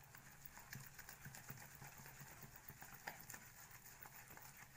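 Faint wet patter and squish of a hand working gram-flour batter in a stainless-steel bowl, with a few light ticks.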